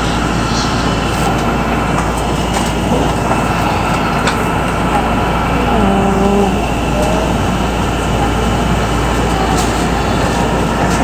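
Steady running noise of a Hankyu 9000 series electric train heard inside the passenger car: wheels on the rails and the motors at a steady speed, with no stops or breaks.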